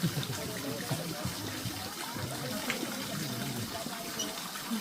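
Indistinct chatter of several people over a steady rush of running water.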